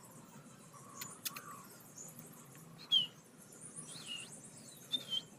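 Outdoor ambience of insects trilling high and steady, with three short falling chirps from a bird in the second half and two faint clicks about a second in.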